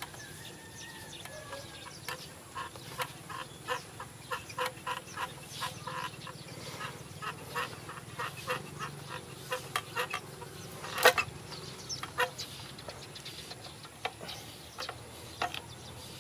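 Repeated short fowl clucks, about two a second, with one sharp click about eleven seconds in.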